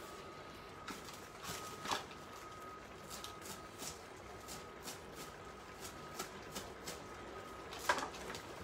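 Kitchen knife chopping fresh parsley on a wooden cutting board: irregular short taps of the blade on the board. A faint steady high tone runs underneath.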